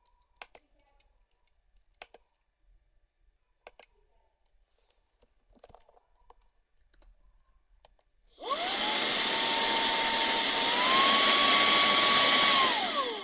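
TANYO cordless handheld vacuum cleaner switched on after a few faint handling clicks: its motor spins up with a whining pitch, steps up to the higher of its two speeds partway through, then is switched off and winds down near the end.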